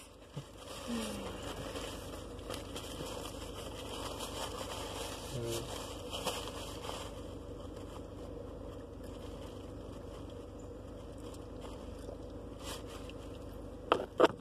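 Steady hum of a car's interior, with faint scraping and rustling of a tissue being handled, and a few sharp clicks near the end.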